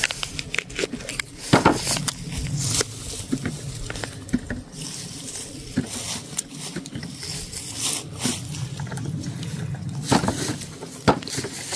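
Someone biting into and chewing a fresh apple: irregular crisp crunches, close to the microphone.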